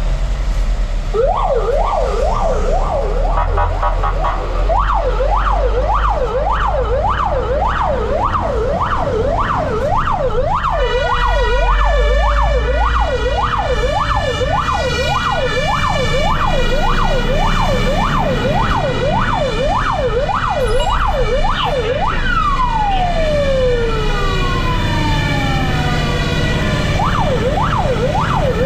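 Fire engine siren on a fast yelp, sweeping up and down about two and a half times a second over the low rumble of the truck's engine. About ten seconds in, a second, steadier siren tone joins it. Near the end, a siren winds down in a long falling glide before the yelp starts again.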